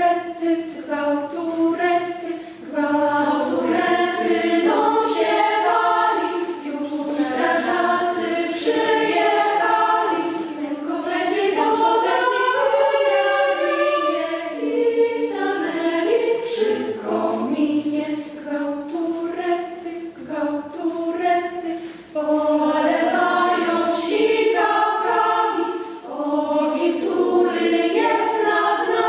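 Children's choir of mostly girls' voices singing unaccompanied, in phrases with short breaths between them; crisp 's' consonants stand out now and then.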